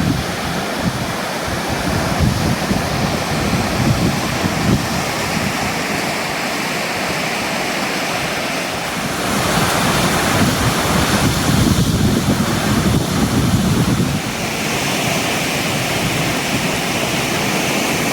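Steady rushing of falling water from a large waterfall, with wind buffeting the microphone. The level shifts about halfway through and again a few seconds later.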